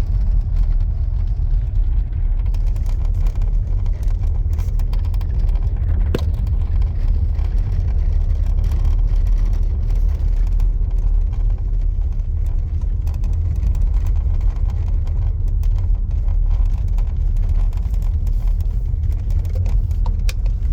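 Steady low road and engine rumble inside the cabin of a moving Skoda Kodiaq, with faint intermittent creaks and ticks from the dashboard trim, including a sharper click about six seconds in.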